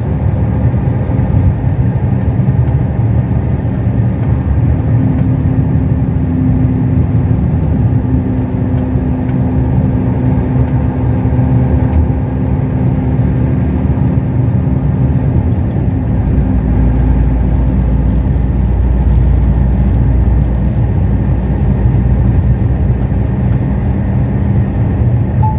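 Heavy truck's diesel engine and tyre noise heard from inside the cab while driving: a steady low drone. About two-thirds of the way through, the low rumble deepens.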